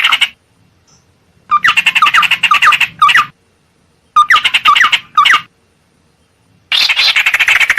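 Ciung air (tit-babbler) lure call: loud bursts of rapid chattering notes mixed with quick downward-swooping whistles. There are three bursts of about one to two seconds each, separated by short silences.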